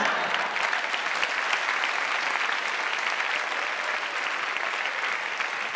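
A large theatre audience applauding, a dense, even clapping that eases off slightly toward the end.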